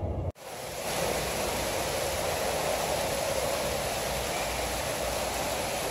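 Steady rush of running water from an artificial rock waterfall and stream display, fading in after a brief vehicle-cabin hum is cut off.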